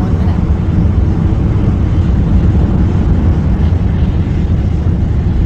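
Astra Rocket 3.3's first-stage engines, five Delphin engines, during ascent: a loud, steady low rumble.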